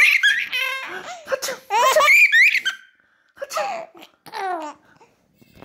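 A baby laughing loudly in high-pitched belly-laugh peals. Two long, loud bursts come in the first three seconds, then two shorter, quieter ones, and the laughter dies away near the end.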